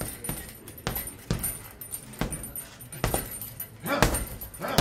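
Gloved punches landing on a hanging heavy bag: a string of about seven sharp thuds at an uneven pace, roughly one to two a second, with the hardest one about four seconds in.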